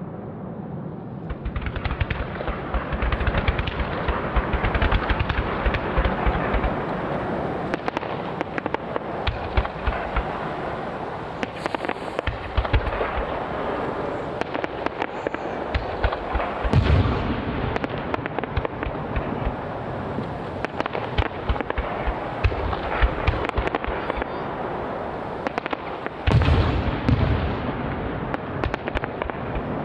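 Aerial fireworks display: shells bursting in a dense run with continuous crackling and popping. Heavier deep booms come a little past halfway through and again near the end.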